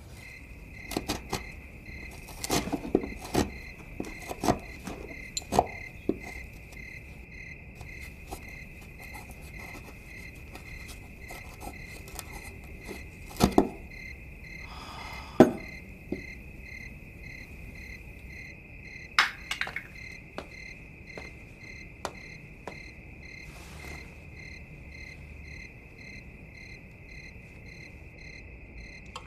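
Crickets chirping steadily in a continuous chorus, with scattered sharp knocks and short scrapes, clustered in the first few seconds and again around the middle.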